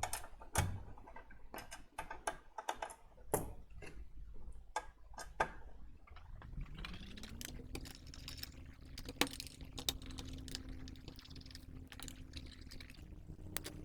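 Clicks and taps of the power supply's metal case and tools being handled, then about six seconds in a small electric screwdriver's motor spins up, rising in pitch, and runs steadily, backing out the case screws.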